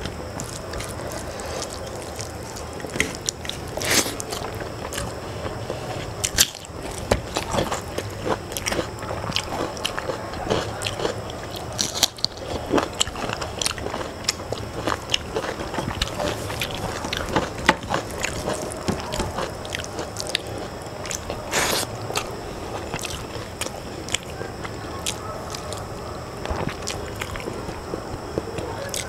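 Rice and curry being mixed by hand on a stainless steel plate and eaten: chewing and wet mixing sounds, with frequent short sharp clicks throughout.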